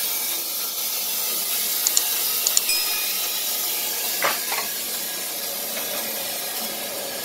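Steady hissing noise of a Wood-Mizer LT15 band sawmill running. A few light clicks and a brief ding come about two seconds in, and two knocks follow around four seconds in.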